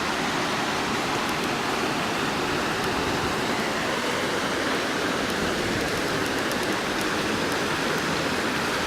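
Floodwater rushing and washing over a street, a steady, even rush of water.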